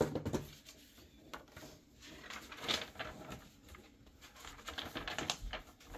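Paper instruction sheets rustling and crinkling as they are pulled from a cardboard box and unfolded, with a few soft knocks from handling the box.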